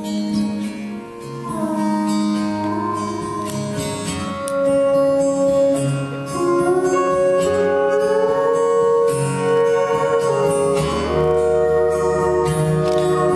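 Live band playing an instrumental passage: held chords with a slide guitar gliding between notes, the band coming in fuller about four seconds in.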